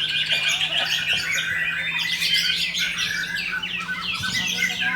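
White-rumped shama (murai batu) singing a fast, unbroken string of varied chirps, trills and sweeping whistles, over a steady low hum.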